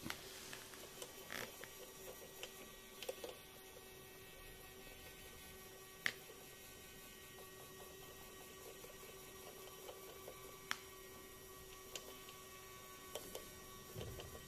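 Faint steady hum of a small DC motor driving a homemade LEGO monorail engine along its toothed rack track. Occasional light clicks sound through it, the loudest about six seconds in.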